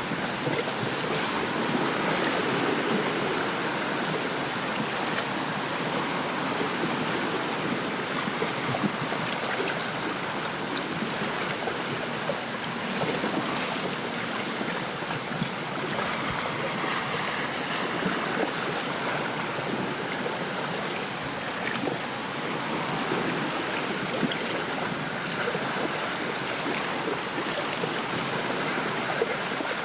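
Wind rushing through a lakeside reed bed with small waves lapping at the shore: a steady hiss with faint scattered splashes.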